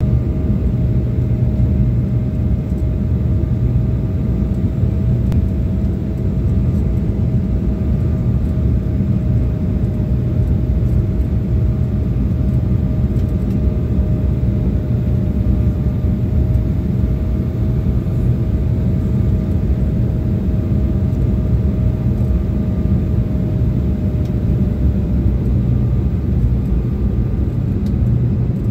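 Steady low rumble of cabin noise inside an Embraer 175 airliner on approach, from its wing-mounted GE CF34-8E turbofan engines and the airflow over the fuselage. A thin, steady whine holds at one pitch through most of it.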